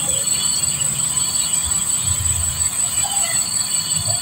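Steady, high-pitched chorus of insects buzzing in the streamside vegetation, over a low rumble.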